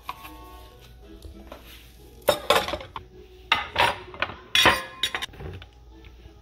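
Ceramic plates and bowls and a plastic divided plate clattering and clinking as they are set down into a stainless steel sink among other dishes, in three quick bursts of knocks.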